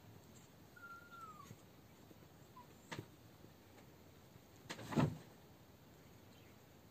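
Quiet sounds of toy terrier puppies and a Sphynx cat close together: a faint, thin high squeak falling slightly in pitch about a second in, a single click near three seconds, and a brief louder noisy burst about five seconds in, as a puppy noses at the cat.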